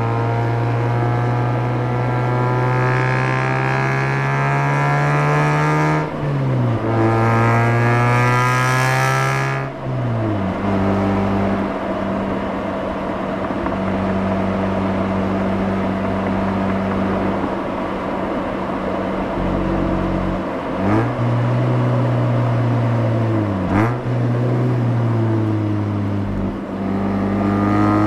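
Mazda RX-8's twin-rotor rotary engine heard at the exhaust, accelerating through the gears: the revs climb, drop at a gear change about six seconds in, climb again and drop at another shift near ten seconds, then hold steady at cruise. Two quick dips in revs follow later, and it pulls up again near the end.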